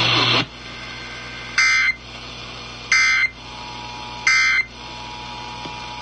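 Emergency Alert System end-of-message signal from a vintage multiband radio's speaker: three short, loud bursts of harsh buzzing data tone about a second and a half apart, marking the end of the alert broadcast. Between the bursts the radio gives a steady hiss and hum.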